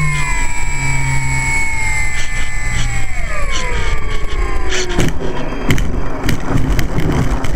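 Electric motor and propeller of an E-flite Apprentice RC plane whining, heard from on board; the pitch falls as the motor is throttled back about three seconds in. From about five seconds the plane is on the grass, with rough knocks and rattling as it bumps along on landing.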